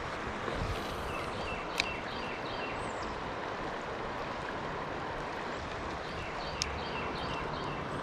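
Steady rush of flowing creek water, with a small bird chirping in short repeated phrases and two sharp clicks, one about two seconds in and one near the end.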